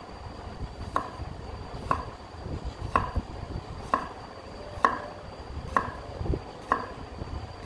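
Cleaver slicing garlic cloves on a wooden cutting board: the blade knocks on the board in slow, even chops, about one a second.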